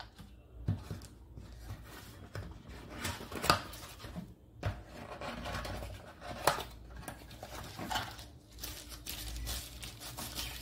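Handling of product packaging: cardboard tray flaps being opened and a clear plastic bag around the trimmer crinkling as it is lifted out, with scattered sharp crackles and taps.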